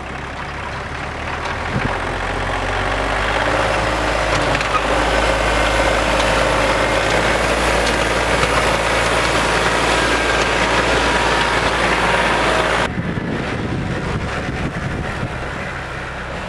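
Loader tractor engine running steadily while plowing snow, growing louder over the first several seconds. About thirteen seconds in, the sound cuts abruptly to a quieter engine running.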